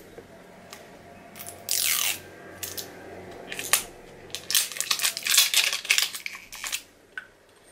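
Packaging being torn and crinkled off a new lipstick: a tearing rip about two seconds in, then a run of crackling crinkles in the second half.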